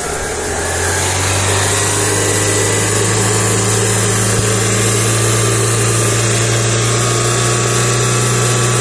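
Chevrolet Onix 1.0 four-cylinder engine revving up over the first second and then held steady at about 3,500 rpm, heard from under the car at the pulleys and accessory belt. The revs are held up to bring out a persistent belt noise, which the mechanic puts down to a weak belt tensioner letting the belt go slack and slap.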